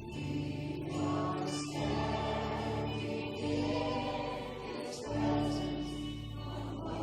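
Live worship music: a band playing sustained chords over a bass line, with voices singing together.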